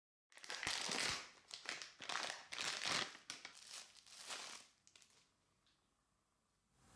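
Crinkling and tearing of a bath bomb's wrapper being opened by hand, in a run of rustling bursts for about five seconds that then stops.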